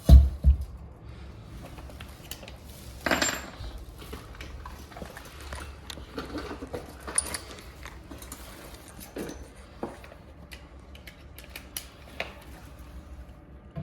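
Scattered clicks and knocks of metal parts and tools being handled, with a thump at the start and a ringing metallic clink about three seconds in, over a steady low hum.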